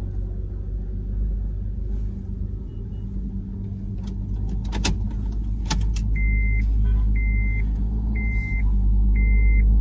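Car engine idling steadily, heard from inside the cabin. Two sharp clicks near the middle, then from about six seconds in a high short beep repeating roughly once a second.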